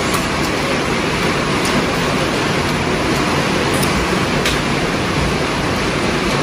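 Heavy rain falling in a steady, loud hiss, with a few faint clicks over it.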